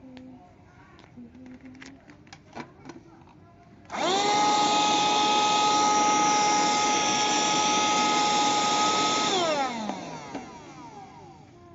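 A few light handling clicks, then a cordless handheld vacuum cleaner's motor switched on about four seconds in, running steadily with a high whine for about five seconds. It is then switched off and winds down, its pitch falling away.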